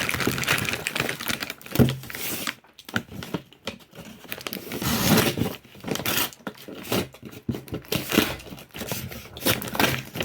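A paper or cardboard mystery box being torn open and crumpled by hand: irregular ripping and crinkling with sharp clicks, the box hard to get open.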